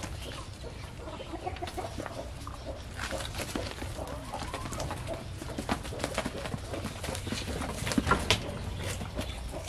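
Goats shuffling and jostling in a wooden pen as a bunch of bananas is handled and set down, with scattered knocks and rustles and a louder cluster about eight seconds in. Birds call in the background.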